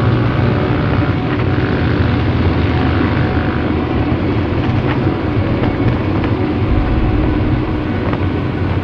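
Motorcycle engine running steadily at cruising speed, heard from a camera mounted on the bike, with wind noise on the microphone.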